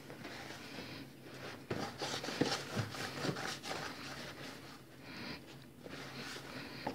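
Hand mixing and kneading flour into a soft yeast dough in a bowl: rustling and squishing, with a few soft knocks against the bowl about two to three and a half seconds in.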